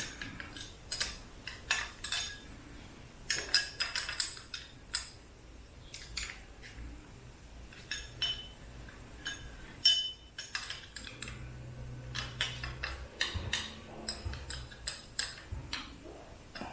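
Metal hand tools clinking and clattering against each other as they are handled and sorted, in many irregular sharp clinks with a bright metallic ring.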